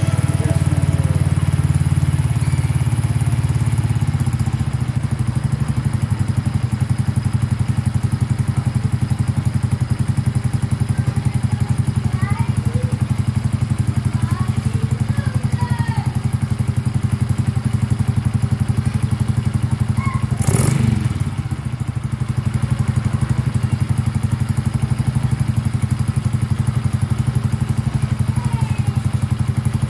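Suzuki Raider J Fi 115's single-cylinder four-stroke fuel-injected engine idling steadily with its valve clearances freshly set. Its revs settle down over the first couple of seconds. A brief sharp clatter comes about two-thirds of the way through.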